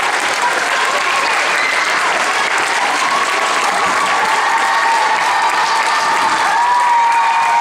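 A large crowd applauding, steady dense clapping that holds at the same level throughout.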